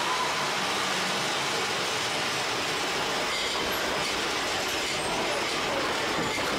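Big Thunder Mountain Railroad's mine-train roller coaster cars running along the steel track through a dark cave, a steady, even running noise of wheels on rail.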